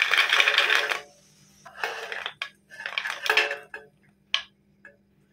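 Crisp fried uppu seedai (small rice-flour balls) tumbling and clattering off a tilted steel plate into a serving dish. A long rattling rush opens it, followed by three shorter pours and a few single clicks as balls drop in.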